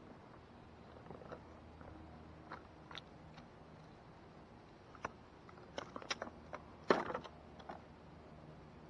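Scattered light clicks and knocks, the loudest about seven seconds in.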